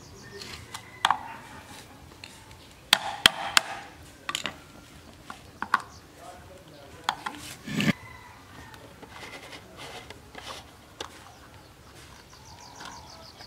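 A flathead screwdriver scrapes and pries at the terminal-box cover of a rusted electric motor, making scattered sharp clicks and scrapes. There is a louder cluster of scraping about three seconds in, and a knock about eight seconds in.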